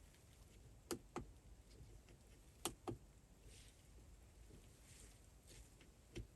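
A few short, light clicks of the dash cam's menu buttons being pressed, a pair about a second in, another pair near three seconds in and one near the end, over near silence.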